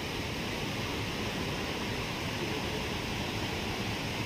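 Steady, even ambient noise of a large airport terminal hall, with no voices or distinct sounds standing out.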